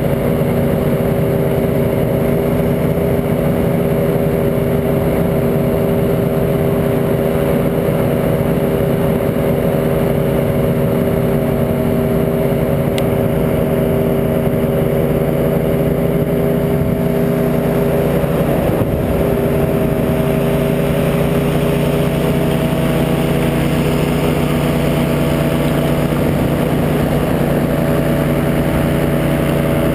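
Flanders Paramotor Silent Twin Trike's engine and propeller running steadily in flight, a constant drone with rushing noise over it.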